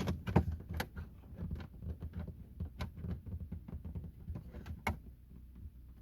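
Plastic dashboard trim of a Ford Fiesta being worked at its retaining clips: a run of irregular plastic clicks, taps and knocks, the sharpest about half a second in and near five seconds in.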